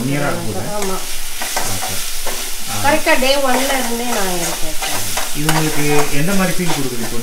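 Food frying and sizzling in a pan while it is stirred, a steady hiss throughout, with a singing voice holding long, wavering notes over it.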